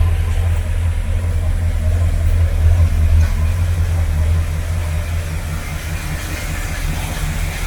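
1977 Mercury Cougar's 351 Windsor V8 idling steadily, heard at the square tailpipes as a low exhaust rumble, slowly getting quieter toward the end.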